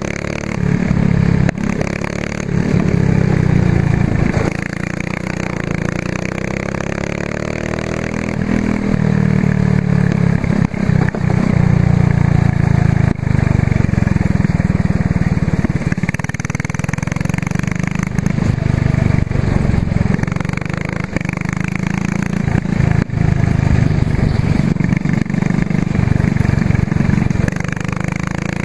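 Racing kart's engine running hard through a lap, heard from a camera mounted on the kart, its pitch climbing under acceleration and falling when the throttle is lifted. A few short knocks break in along the way.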